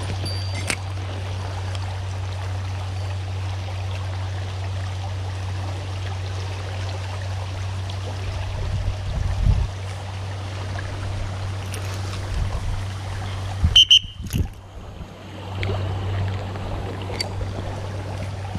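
River water flowing steadily, with a few low bumps of handling noise, the loudest a couple of knocks about three quarters of the way in.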